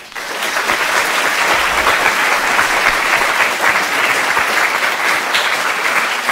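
Audience applauding in a lecture theatre at the end of a talk, many hands clapping steadily; it rises quickly at the start and stays loud.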